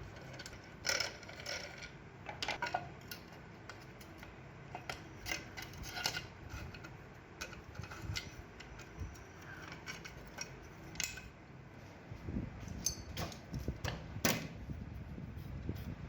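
Small metal parts and hand tools being handled: irregular clicks and light metallic clinks, with a sharper knock about a second in and another loud click near the end, and a low rumbling stretch toward the end.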